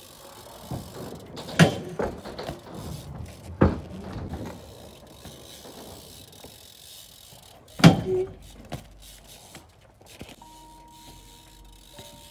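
BMX bike tyres rolling on asphalt, with three sharp knocks of the wheels coming down on the ground, the third the loudest. Near the end, background music with held notes comes in.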